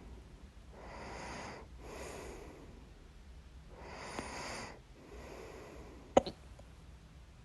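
A person breathing audibly in and out several times, then one sharp, loud hiccup about six seconds in.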